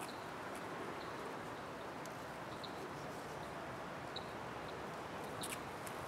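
Steady outdoor background hiss with a few faint, short high chirps spread through it, and one sharp click near the end.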